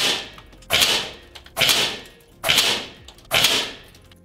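Five shots from a .25 caliber Seneca Aspen multi-pump PCP air rifle, each a sharp report that fades over about half a second, evenly spaced a little under a second apart.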